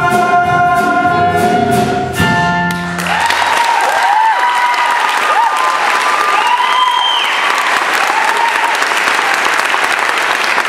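A cast and band hold a final sung chord that cuts off about three seconds in. The audience then breaks into steady applause with whoops and cheers.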